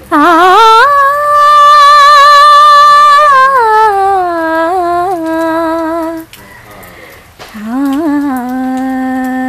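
A woman singing solo and unaccompanied, holding long notes with a wavering vibrato and small ornamental turns. She breaks off briefly about six seconds in, then starts again on a lower held note.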